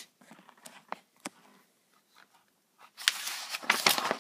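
Paper instruction manual rustling as it is unfolded and handled: a few light crinkles and taps, then a louder rustle lasting about a second near the end.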